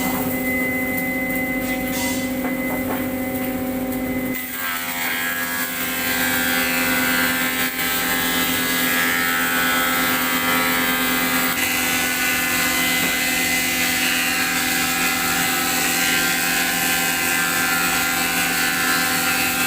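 Finger-joint woodworking machine running with a steady mechanical hum. About four seconds in its tone shifts and a louder hiss joins, which holds steady until near the end.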